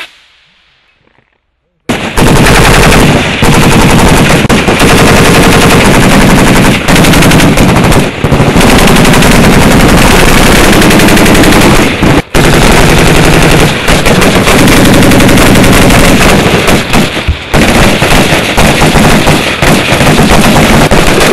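A blast dies away at the start. About two seconds in, very loud, dense, near-continuous gunfire from a firing line of military rifles begins and runs on with only a couple of brief gaps.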